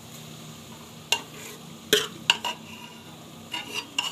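Metal spoon clinking and scraping against cooking pots as mashed boiled vegetables are scooped into a pan of fried pav bhaji masala, about seven sharp clinks in the second half over a low steady hum.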